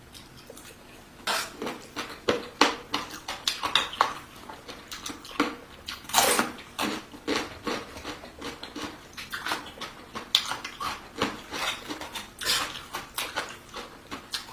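Close-up eating of rice noodles in curry: chewing and mouth sounds with many short clicks and clinks of cutlery against dishes throughout.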